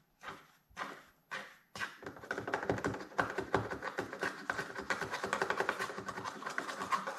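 Rapid tapping and scraping on glassware as a powder mixture is worked through a funnel into a boiling flask: a few separate knocks at first, then a dense, continuous run of clicks and scrapes with a faint glassy ring from about two seconds in.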